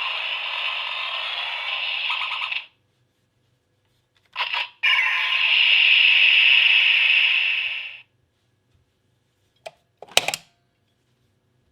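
Bandai Blay Buckle toy transformation belt playing electronic sound effects through its small speaker. There are two long buzzing, ringing effects with a short blip between them, then two or three sharp plastic clicks near the end.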